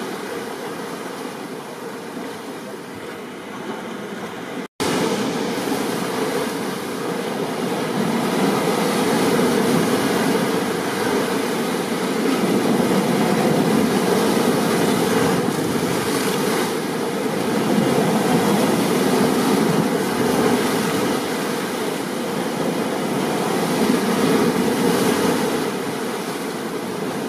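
Steady rain and ocean surf noise that swells and eases slowly, as from a stormy beach. It cuts out for an instant about five seconds in, then comes back slightly louder.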